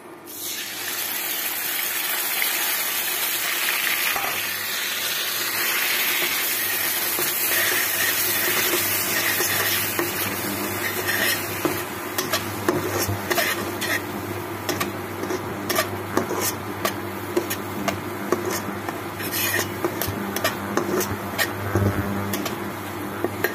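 Wet tomato, ginger and green-chilli paste hitting hot oil in a nonstick kadai: a loud sizzle starts at once and keeps going as the masala fries. From about halfway a spatula stirs the paste, scraping and clicking against the pan over the continuing sizzle.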